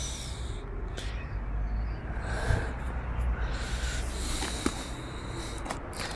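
Steady low rumble, like wind on the microphone, with a few light handling knocks; the loudest knock comes about two and a half seconds in.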